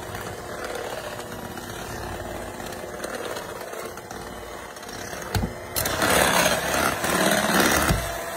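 Electric hand mixer running steadily, its beaters whipping cream cheese icing with a splash of milk just added. It gets louder and rougher for the last couple of seconds.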